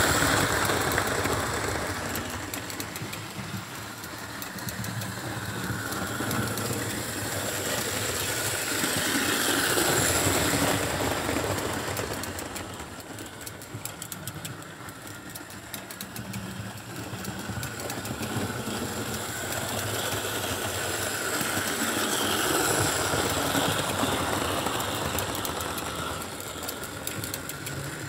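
Electric OO-gauge model train, a 4-6-2 locomotive hauling coaches, running round the track: motor and wheels on the rails. It grows louder and fades again three times as the train passes close and moves away.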